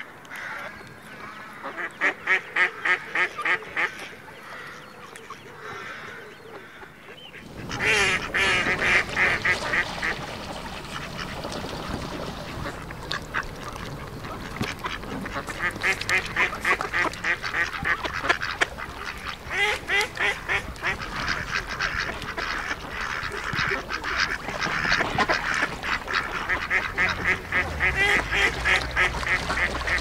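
Mallard hen with ducklings calling in rapid runs of calls, then, from about 7.5 s in, Canada geese honking and calling over and over, with a steady low background of wind and water under the calls.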